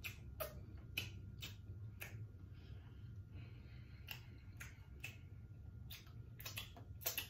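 Close-up chewing of a turkey leg: faint, irregular wet mouth clicks and smacks, about one or two a second, over a low steady hum.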